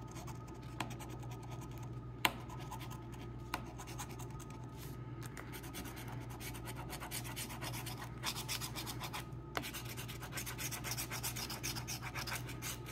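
A coin scraping the scratch-off coating from a lottery ticket: quick, continuous scratching strokes, with a few sharper ticks.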